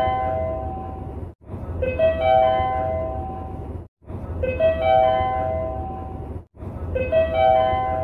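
Train operation-information update chime: a three-note rising chime that rings on, repeated about every two and a half seconds with a brief break between repeats, over a low background rumble.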